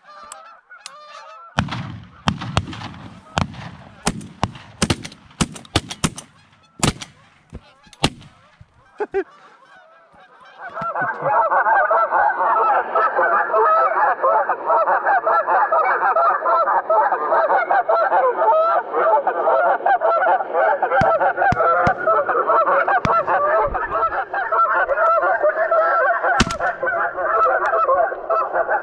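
Scattered sharp knocks and rustles of handling close to the microphone, then about ten seconds in a large flock of geese starts honking and keeps on in a loud, dense, overlapping chorus.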